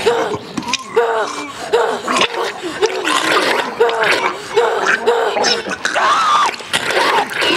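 Horror film soundtrack of a violent attack: a voice crying out over and over, about two cries a second, with a woman screaming and a man's wet choking and gurgling.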